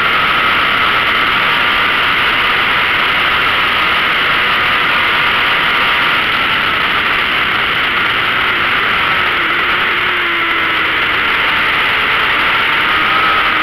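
Onboard sound of a 600cc race motorcycle at racing speed: heavy wind rush over the camera microphone with the engine's high-revving note beneath it, the engine pitch dipping slightly and then rising again near the end.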